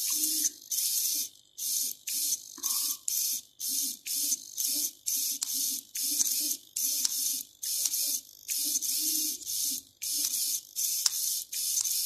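Small hobby micro servo whirring in short bursts, about two a second, as it swings back and forth under joystick control.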